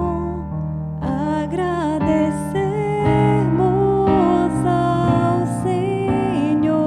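A woman singing a slow Catholic responsorial psalm over piano chords, holding long notes with a gentle vibrato.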